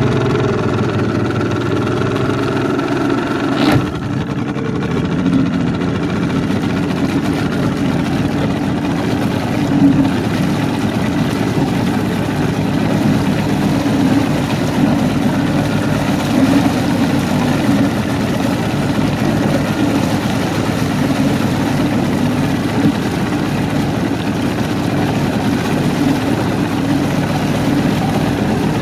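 Mariner Magnum II two-stroke V6 outboard motor running steadily just after starting, then pushing the boat along. There is a single sharp knock about four seconds in.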